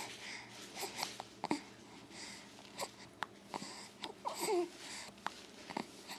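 Baby with the hiccups making small breathy sounds and short clicks from the mouth and throat, with a brief coo about four and a half seconds in.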